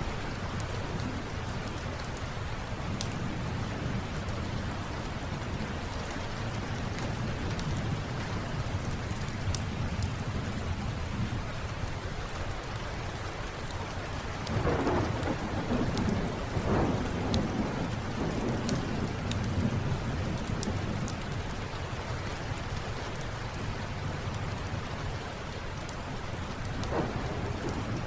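Steady rain with a roll of thunder rumbling about halfway through and again faintly near the end, over scattered sharp crackles from a fireplace.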